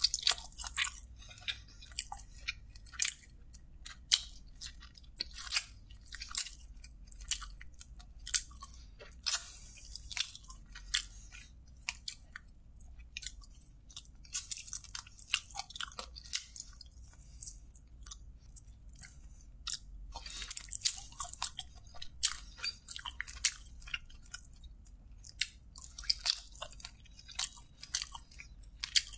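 Close-miked chewing and wet lip-smacking as a man bites and eats sauced chicken drumsticks by hand: irregular clusters of sharp, crackly mouth clicks with a few short lulls.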